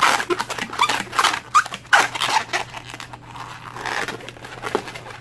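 Latex modeling balloon squeaking and rubbing against itself as it is twisted into a tight spiral by hand. The squeaks are loudest in the first three seconds and soften toward the end.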